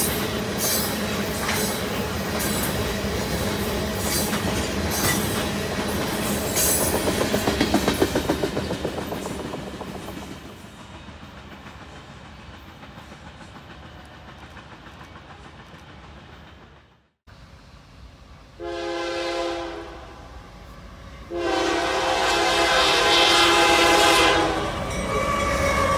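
A freight train of tank cars rolls past, its wheels clicking steadily over the rail joints, then fades as the rear car moves away. After a break, a diesel locomotive's air horn sounds twice: a short blast, then a longer one.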